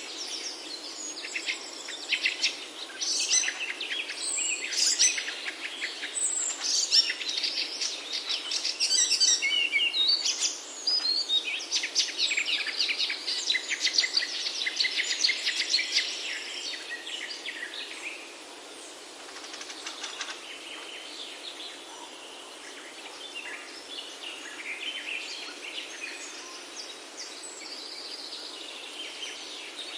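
Several small birds chirping and singing in quick overlapping calls and trills over a steady background hiss, busiest in the first half and thinning out after about sixteen seconds.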